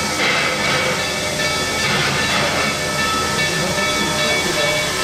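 Black Hills Central Railroad steam locomotive letting off steam in a steady hiss.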